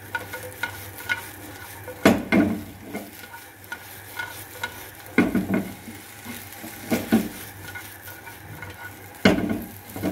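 A plastic spatula stirs and tosses sauced, fried fish pieces in a non-stick wok while the food sizzles. Loud clatters of spatula and pan come in quick pairs about every two to three seconds.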